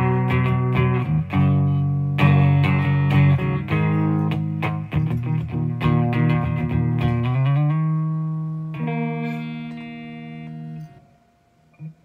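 Squier Stratocaster electric guitar played through a Peavey ValveKing tube amp: a run of strummed and picked chords, then about seven seconds in a chord slides up in pitch and rings on for a few seconds. It cuts off shortly before the end, and a new chord starts just as it ends.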